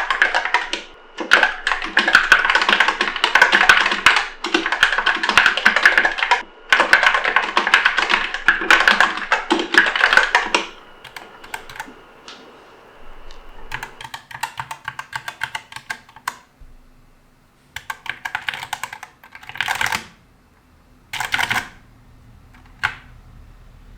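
Fast typing on an Epomaker SK64 mechanical keyboard with Gateron Optical Black linear switches: a dense run of keystrokes for about ten seconds, then short, scattered bursts of key presses.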